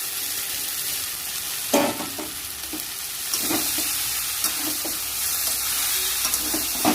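Vegetables frying in oil with spice paste in a pan, a steady sizzle, while a spatula stirs them and knocks against the pan several times, most sharply about two seconds in and at the end.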